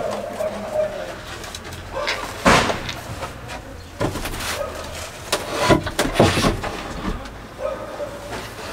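Knocks and scrapes of a white wooden wall cabinet being handled and positioned against the van wall, the sharpest knocks coming about two and a half, four and six seconds in. A pigeon coos at the start and again near the end.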